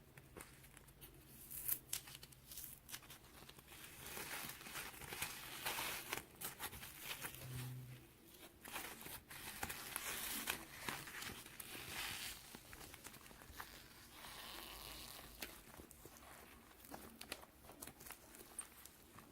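Irregular rustling and crinkling with many scattered sharp clicks, in a small room.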